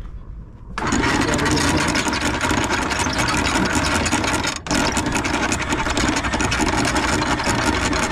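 Electric anchor windlass hauling in chain. The motor starts abruptly about a second in and runs steadily, with a brief stop near the middle, as the chain comes up over the bow roller.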